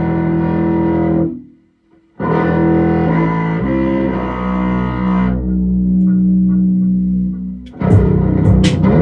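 Upright bass playing an instrumental passage of held, plucked low notes, with a short break about one and a half seconds in. Near the end, sharp percussive clicks join the notes.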